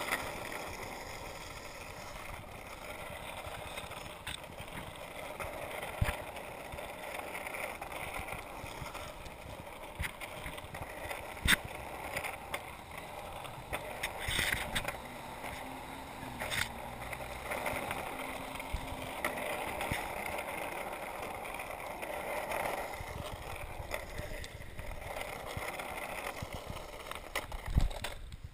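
Freebord's wheels rolling over asphalt, a steady rolling noise, with a few sharp clacks along the way and louder knocks near the end.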